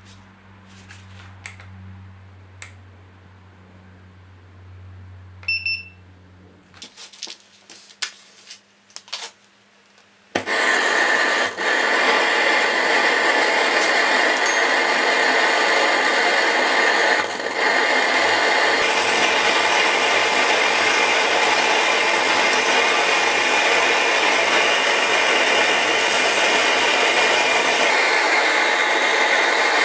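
A short electronic beep and a few clicks, then about ten seconds in a gas torch lights and burns with a loud, steady hiss into a two-brick forge, heating a steel knife blade.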